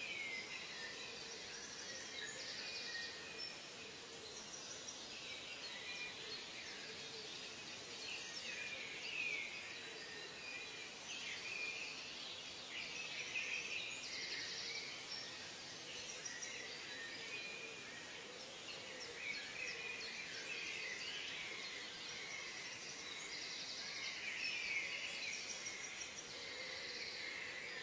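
Nature ambience of many birds chirping and calling over one another, with short bursts of high insect buzzing, over a steady background hiss.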